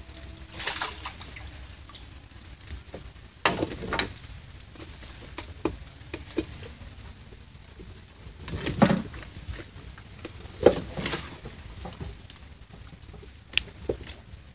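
Canal water splashing and sloshing in a few short bursts as a collapsible net fish-and-shrimp trap is worked at the side of a small wooden boat, with a steady high-pitched hum underneath.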